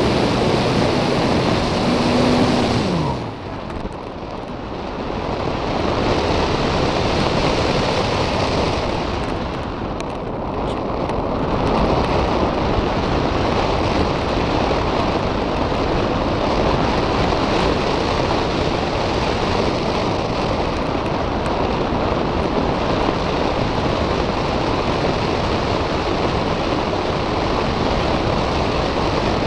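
Parkzone Radian glider's electric motor and propeller running at a steady pitch, then cut about three seconds in, the pitch falling as they wind down. After that there is a steady rush of wind over the onboard camera's microphone as the glider flies unpowered.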